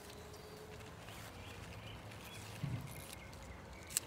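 Hand pruning shears snipping kale stems: faint clicks, the sharpest just before the end, over quiet outdoor background noise.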